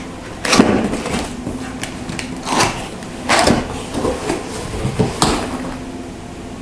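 Cardboard box and packaging being handled and opened: a series of separate scrapes and rustles, the loudest about half a second in.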